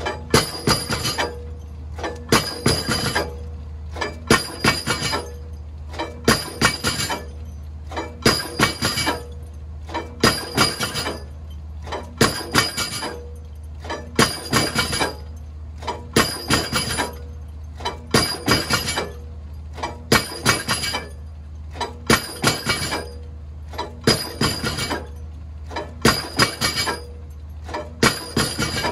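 Pile-driving hammer striking a precast reinforced concrete pile about once every two seconds, each blow a cluster of sharp clanks, over the steady low drone of the piling rig's engine. The pile is being driven while its set per blow is measured.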